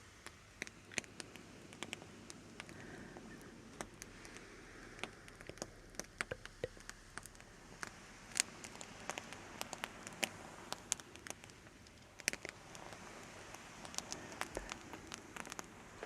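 Soft, irregular crackling: scattered sharp clicks and pops, close to the microphone, over a faint hiss.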